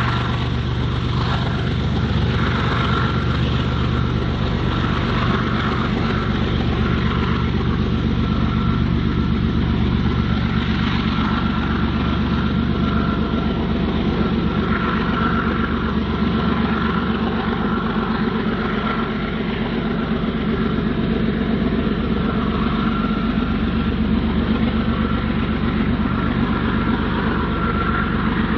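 BNSF diesel freight locomotives running steadily, a heavy continuous engine drone with no break.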